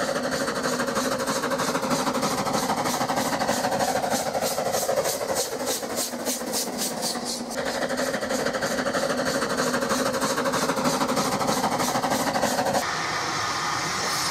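Steam locomotives running, a fast, even beat of exhaust chuffs. The sound changes suddenly about halfway and again near the end, where it becomes a steadier hiss.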